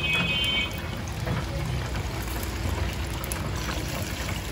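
Street-stall background: a horn-like beep in the first moment, over a steady hiss and low rumble.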